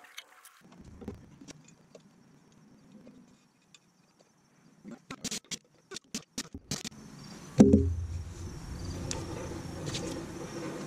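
A quick run of sharp metallic clicks as a tool snugs the lug nuts on a trailer wheel. Then a thump as the wheel is pushed by hand, and a steady low rumble as the jacked-up wheel spins on its hub.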